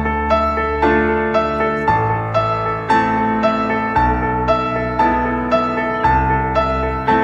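Background music: a gentle piano or electric-piano tune with notes struck about twice a second over a bass line that changes about every two seconds.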